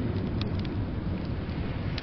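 Steady low rumble of blizzard wind, with a few sharp wood-fire crackles from a fireplace, the clearest about half a second in and another near the end.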